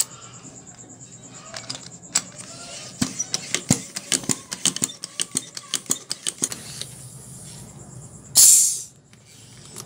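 A flurry of sharp clicks, then about eight seconds in a loud, short hiss of air as the foot pump's connector is pulled off the bicycle tyre valve.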